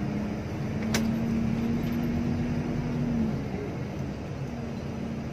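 Inside the cabin of a Hino RK8 diesel coach: engine and road noise with a steady hum that fades a little over three seconds in and returns near the end. There is a single sharp click about a second in.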